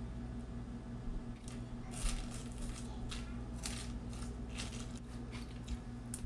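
A fork tossing a lettuce, mango and carrot salad on a plate: a series of short, crisp rustles and scrapes starting about a second and a half in, over a low steady hum.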